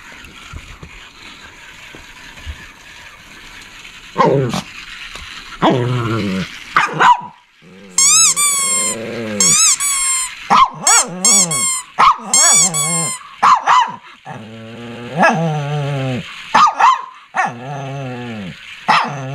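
Shih Tzu barking repeatedly from about four seconds in, high-pitched yipping calls mixed with lower, growly barks.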